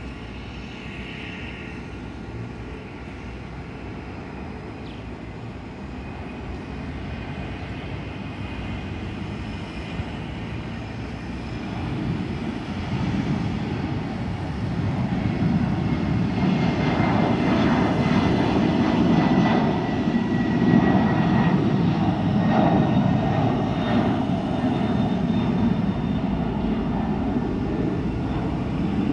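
Boeing 767-300ERF freighter's twin jet engines at takeoff power as it takes off and climbs away, growing louder over the first half and then holding steady. A faint whine falls slowly in pitch as it passes.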